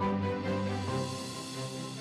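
Background music: an instrumental soundtrack of held notes and chords, with no beat.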